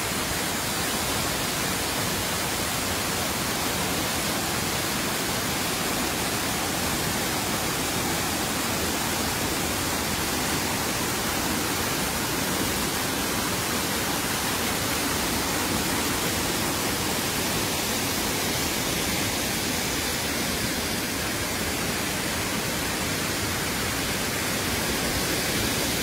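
Waterfall plunging onto rocks and into a pool: a steady rush of falling water.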